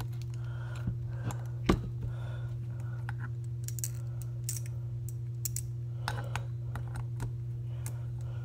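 Light clicks and scrapes of hand tools against a small electric motor's metal housing as it is handled and a long screw is worked loose, with one sharper knock about two seconds in. A steady low hum runs underneath.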